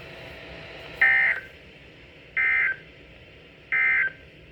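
Three short bursts of Emergency Alert System digital data tones from a NOAA Weather Radio broadcast, each about a third of a second long and spaced evenly, over a steady radio hiss: the end-of-message code that closes the warning.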